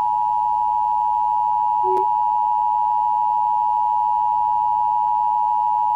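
Emergency Alert System attention signal: two high tones sounded together as one steady, unbroken alarm tone, with a faint click about two seconds in.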